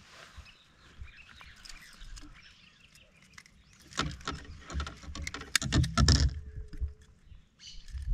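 Clicking and rattling of handling a small freshly caught fish and its lure in a kayak, as the fish is unhooked by hand. It is quiet for the first half, then a busy run of sharp clicks and rattles comes about four seconds in, loudest around six seconds.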